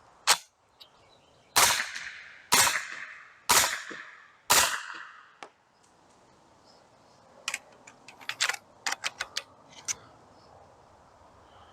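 Four shots of 115-grain 9mm fired from an H&K MP5SD through its integral suppressor, about a second apart, each a sharp report with a short echoing tail. A run of light clicks follows a few seconds later.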